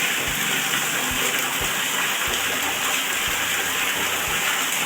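Water running or gushing steadily, with a soft low thump about twice a second underneath.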